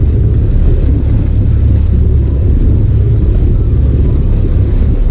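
Steady low rumble of wind buffeting the microphone over the running engine of an offshore fishing boat.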